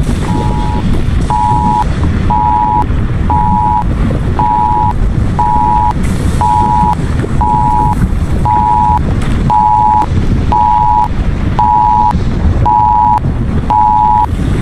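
An Emergency Alert System two-tone attention signal beeping about once a second, louder from about a second in. Under it runs a loud, low rumble from volcano-eruption and bubbling-lava sound effects.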